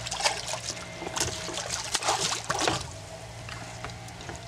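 A hooked sheepshead thrashing at the water's surface: a run of irregular splashes, loudest around two to three seconds in.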